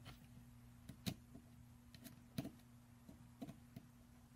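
A few faint, irregular clicks and taps from handling the aluminium resin vat frame and working a small screwdriver at its screws, over a low steady hum.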